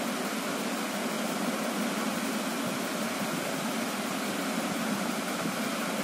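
Steady, even hiss of room background noise with no distinct events.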